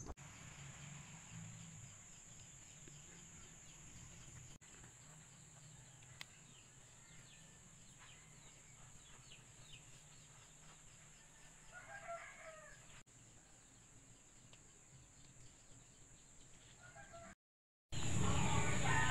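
A rooster crows once, about twelve seconds in, over a faint steady high insect drone. Near the end the sound cuts out briefly, then a much louder stretch of outdoor sound begins.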